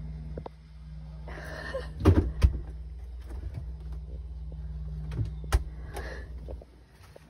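Refrigerator running with a steady low hum, broken by a few sharp knocks as its doors are opened and shut, twice about two seconds in and once more later. The hum drops away near the end.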